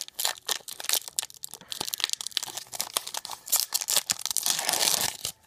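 Foil wrapper of a Pokémon trading card booster pack crinkling and crackling as it is torn open by hand, in quick irregular crackles, with a longer tearing rustle near the end.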